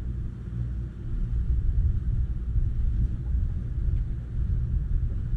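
Wind buffeting a camera microphone: an uneven low rumble that swells and dips.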